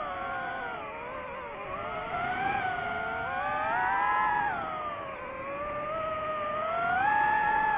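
DJI FPV drone's motors and propellers whining in flight, the pitch climbing and falling with the throttle: rising a few seconds in, dropping back, then rising to its highest near the end.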